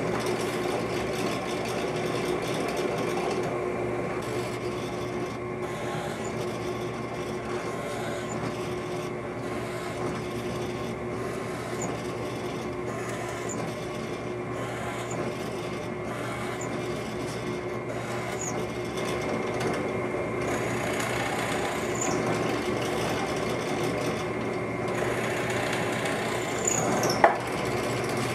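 Benchtop drill press running steadily as a small bit is fed again and again into a wooden board, drilling a row of small peg holes: a constant motor hum, with the cutting noise coming and going at each hole. A sharp knock near the end.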